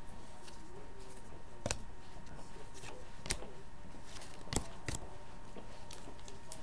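Trading cards being handled: a few sharp, scattered clicks and snaps as cards are flipped through a stack and one is set down, over a faint steady hum.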